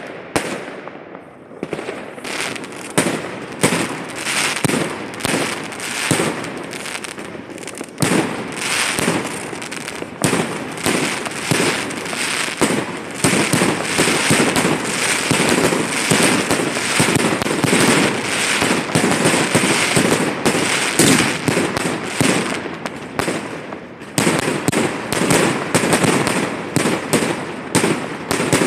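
Aerial fireworks going off in rapid succession: a dense, unbroken string of bangs and crackling bursts, several a second. The string eases briefly about a second in and again shortly before the end.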